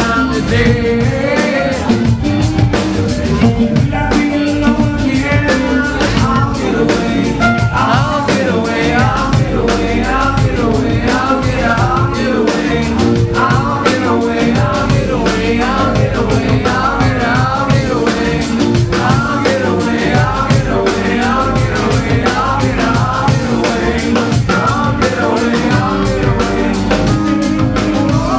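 Live rock band playing a groove on electric guitars and drum kit, with a steady beat and a lead line of bending notes over it.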